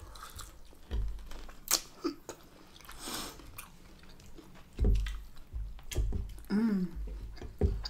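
Chewing and crunching of a steak-and-chips dinner, with a few sharp clicks of forks against plates.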